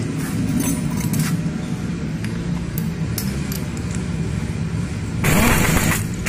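Metal tools clinking as a socket and extension bar are fitted onto a scooter's clutch-drum nut, then about five seconds in a pneumatic impact wrench fires for about a second, running the nut tight. A steady low hum sits underneath throughout.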